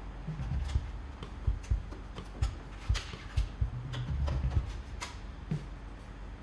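Irregular clicks and light metallic knocks of hand tools and parts being handled during disassembly work, with a short low hum about four seconds in.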